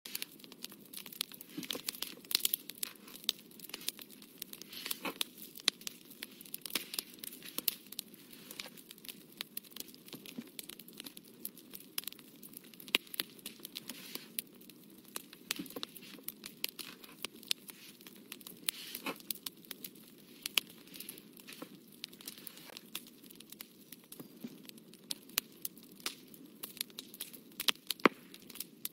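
Paper and photo prints being handled: irregular crinkling, rustling and sharp clicks with no steady rhythm.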